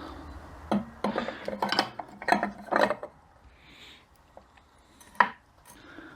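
Metal transmission parts clinking and knocking together as they are handled and fitted: a quick run of clinks in the first three seconds, some ringing briefly, then a single sharp click about five seconds in.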